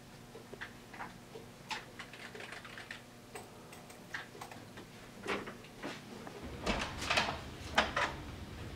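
Scattered faint, irregular clicks of a computer keyboard and mouse along with paper handling at a desk, then a cluster of louder knocks near the end.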